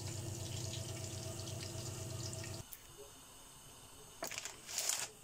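Coated chicken pieces frying in hot oil in a lidded pan: a steady sizzle with small crackles. It cuts off abruptly about two and a half seconds in, and a couple of brief noises follow near the end.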